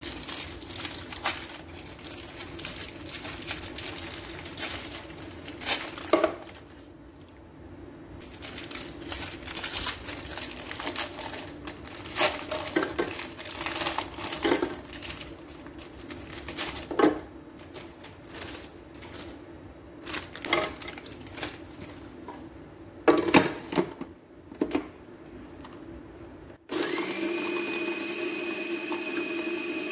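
Biscuit packet wrappers crinkling and biscuits clattering into a plastic food processor bowl, with several sharp clicks. About 27 seconds in, a Kenwood food processor's motor starts suddenly and runs steadily with a high whine, grinding the biscuits to crumbs.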